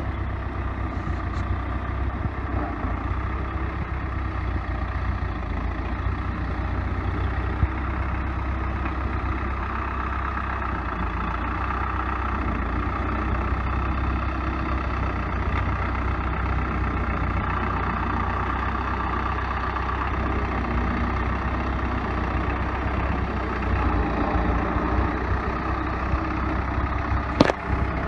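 Four-cylinder diesel engine of a 1960s Case 580B backhoe running steadily at low speed as the machine creeps downhill. A single sharp knock sounds near the end.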